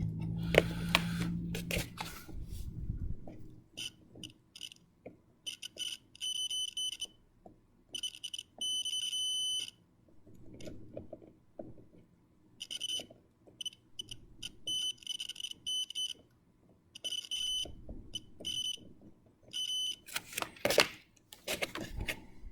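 A continuity tester beeping on and off with a steady high-pitched tone, in short chirps and some longer stretches, as its probes touch header pins and breadboard contacts. The beep means the pin is touching the breadboard's metal strip; where it stays silent, the pin is not deep enough. Clicks and handling noise from the probe tips fall in between.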